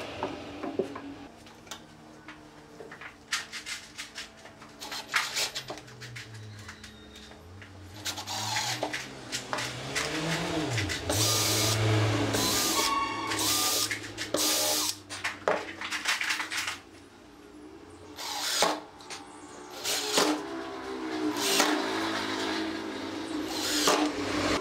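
Makita cordless drill running in short bursts, drilling pilot holes through a metal hinge into wood, with knocks of wood and tools being handled between runs. Near the end, a Makita impact driver drives the hinge screws.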